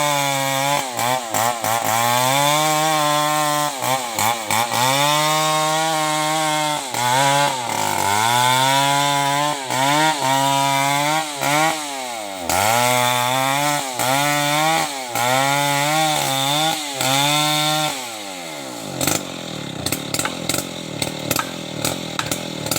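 New West 070 chainsaw running at high revs, its engine pitch dipping and climbing back again and again every second or so as it works through wood. About eighteen seconds in the engine sound drops away, leaving scattered knocks and crackles.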